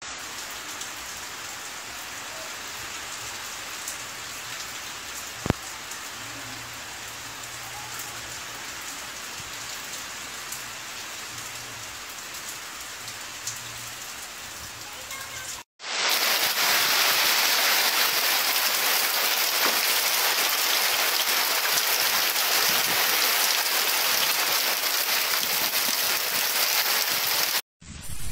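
Heavy rain falling steadily. After a cut about sixteen seconds in, the rain is much louder and brighter, and there is one sharp click a little before that, about five seconds in.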